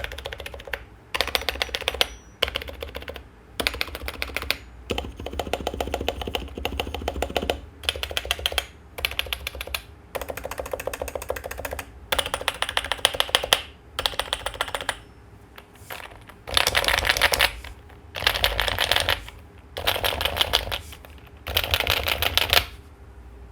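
Topre keyboard with aluminium keycaps being typed on in bursts of rapid key clicks with short pauses between them; the last few bursts near the end are louder and denser. The metal keycaps give a ringing ping, mostly on the upstroke of the keys, which the owner wants to damp with foam and lube or silencing rings.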